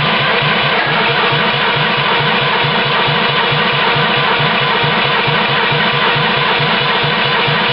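Citroën Dyane 6's rebuilt air-cooled flat-twin engine turning over on a start attempt after restoration, with a loud, steady, rapid beat of about eight pulses a second.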